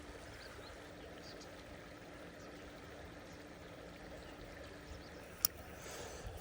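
Steady, faint rush of flowing river water, with one sharp click about five seconds in.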